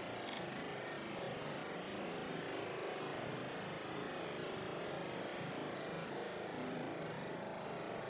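Steady rushing of falling water, an even hiss without rhythm, with faint short high chirps now and then.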